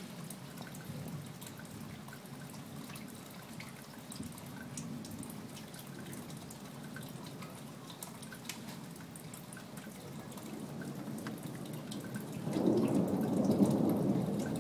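Light rain with scattered drips falling close by. About twelve seconds in, a low roll of thunder builds up and becomes the loudest sound.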